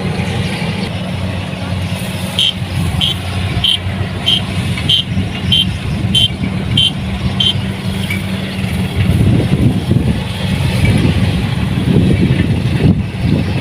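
Kubota DC70 Plus combine harvester's diesel engine running steadily. A couple of seconds in, an electronic beeper gives nine short high beeps, a little under two a second. About nine seconds in, the engine and machinery noise grows louder and rougher.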